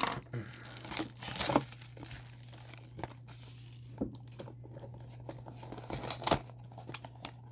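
Small cardboard blind box being handled and torn open by hand: scattered crinkling and tearing of thin card, with a few sharp snaps, the loudest about six seconds in.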